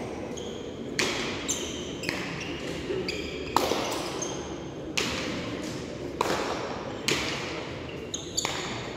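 Hard pelota ball cracking off the frontón wall, the floor and the players' hands in a rally, a sharp knock about every second with echo in the hall. Short squeaks from shoes on the court floor come between the knocks, over a low crowd murmur.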